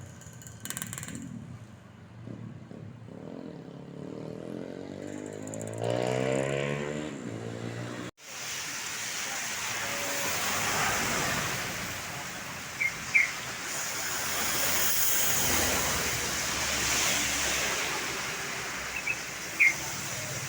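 Roadside traffic: a vehicle's engine rises in pitch as it accelerates past, then, after a break, a steady roar of passing traffic with a few brief high chirps. No telolet horn sounds.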